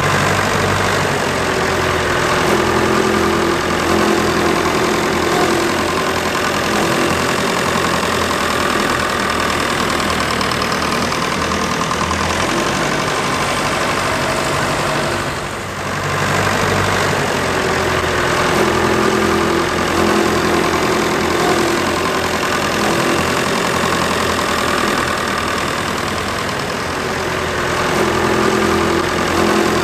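Vintage tractor engine running steadily under load as it pulls a plough through the field, dipping briefly about halfway through.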